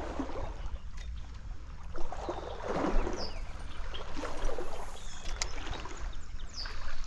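Stream water splashing and sloshing in irregular surges, loudest about three seconds in, with a few sharp clicks.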